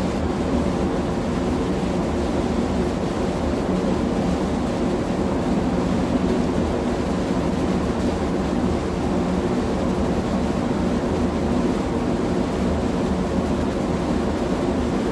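Steady drone of a large ship's engine and machinery, a constant hum of several held pitches over an even rushing noise, with no change in its course.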